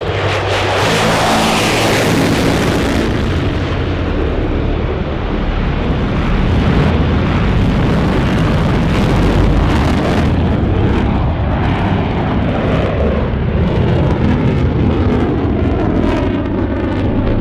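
F-16 fighter jet engine roar: loud, continuous jet noise of passing aircraft with a deep rumble underneath. The high hiss thins out after about three seconds as the first pass moves away.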